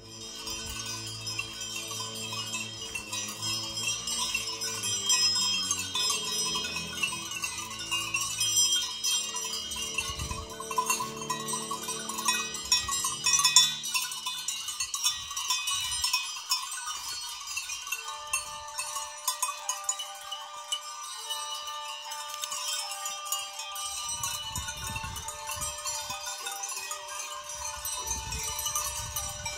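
Bells on a grazing flock of sheep clanking and jingling irregularly, many small bells ringing at once.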